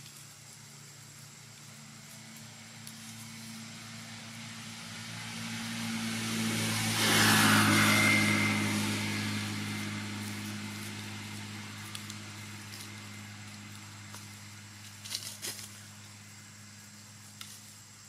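A motor vehicle passing by: its noise builds over a few seconds, peaks, then slowly fades, over a steady low engine hum. A few light clicks come near the end.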